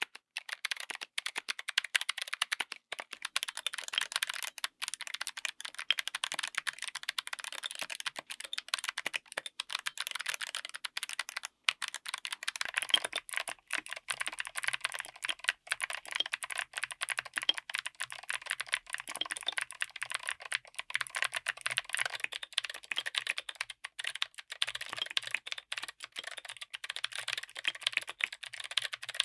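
Continuous fast typing on a mechanical keyboard fitted with clicky switches: a dense, uneven stream of sharp clicks.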